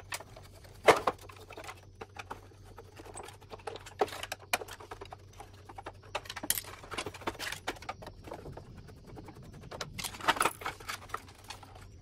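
Irregular clicks, taps and knocks of a screwdriver and hands working on the plastic casing and parts of a split air-conditioner indoor unit, the loudest knock about a second in and a small cluster near the end.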